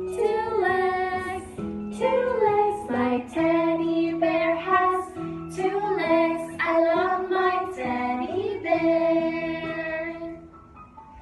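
Female voices singing a children's sing-along song about a teddy bear over backing music. The singing stops near the end, and only softer accompaniment is left.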